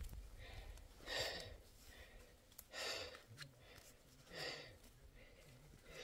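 A man breathing hard, three heavy puffing exhalations about a second and a half apart, winded from heavy work in the heat.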